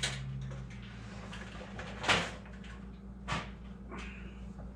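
A motherboard being worked into a computer case: two sharp knocks against the case panel and a brief scrape as it is pushed into place.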